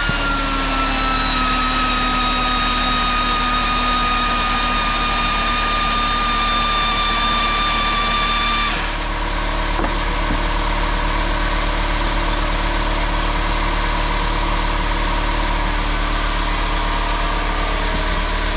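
Air-powered angle grinder running free with a high whine whose pitch sinks slowly, shut off about nine seconds in; it is being run hot in a test to destruction. A steady machine hum carries on beneath it and after it.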